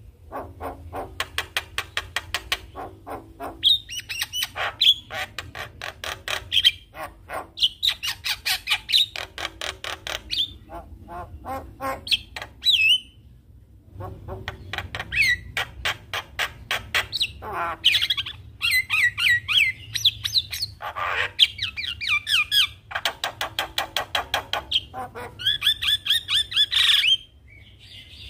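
Javan myna singing a long, varied song: fast runs of rattling clicks mixed with whistled and squawking notes, with a short break about halfway through.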